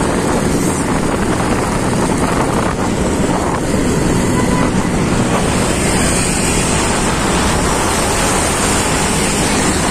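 Steady, loud wind rush over the microphone of a camera carried on a moving motorcycle, with the motorcycle's road and engine noise beneath it.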